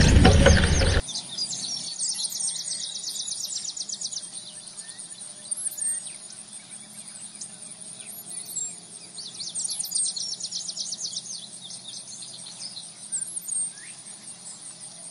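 Loud wind noise on the microphone cuts off abruptly about a second in. What is left is small birds chirping over rapid, high insect-like trills in the meadow.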